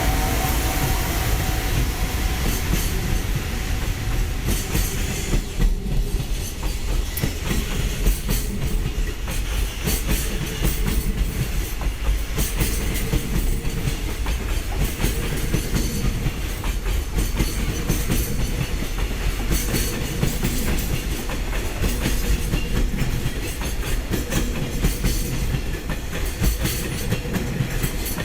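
Freight train's wagons rolling past, their wheels clacking steadily over the rail joints with a continuous rumble.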